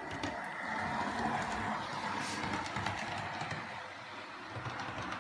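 OO gauge model diesel locomotive running along the track: a steady running noise from its motor and wheels on the rails, with a few light clicks.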